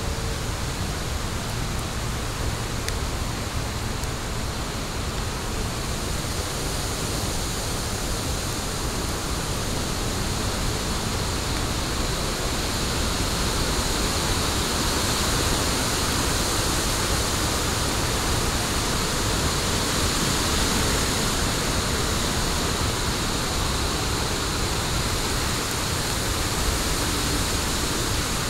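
Wood fire burning in an outdoor fire pit: a steady rushing noise with no distinct crackles, growing slightly louder about halfway through.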